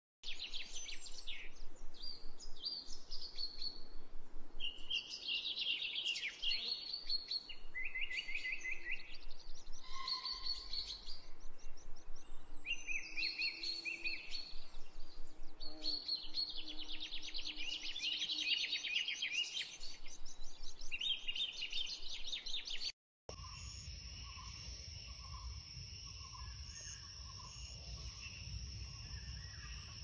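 Songbirds singing: many rapid chirps and trills, one after another. About 23 seconds in the sound drops out for a moment and gives way to a steady, pulsing insect chorus with a low rumble underneath.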